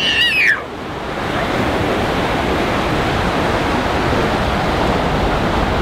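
Ocean surf breaking and washing up a sandy beach, a steady rushing wash, with wind rumbling on the microphone. A child gives a short high-pitched cry right at the start.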